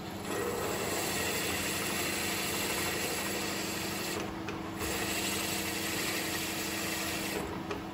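Milling machine spindle running while an end mill cuts around the edge of a small metal flange: a steady hum with the hiss of the cut. The hiss drops away briefly a little past halfway and again near the end.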